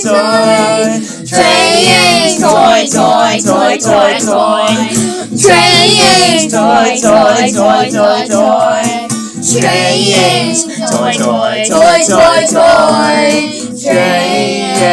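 Music: a song with a sung melody that wavers in pitch, held over a loud, continuous backing track.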